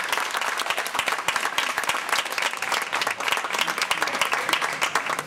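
A small crowd applauding, many hands clapping steadily at once.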